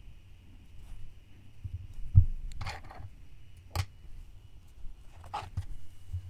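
Soft handling sounds of hand embroidery while a thread is knotted off on felt: short rasps of floss and fabric being handled, a low bump about two seconds in, and a sharp click a little before four seconds.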